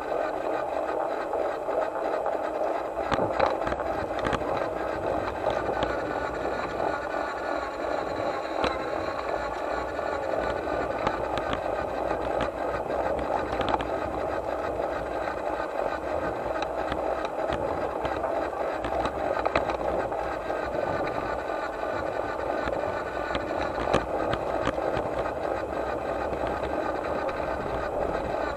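Model locomotive running along a garden railway: a steady mechanical whirr with scattered sharp clicks as its wheels pass over the track.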